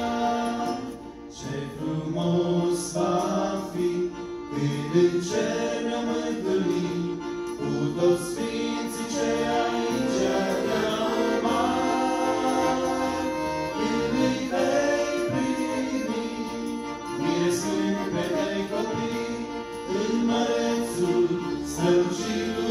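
Male voices singing a Romanian Christian song in harmony, accompanied by accordion.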